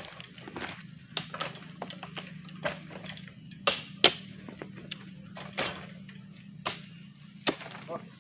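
Irregular sharp knocks and thuds, about a dozen, with the two loudest close together about four seconds in, over a steady low hum.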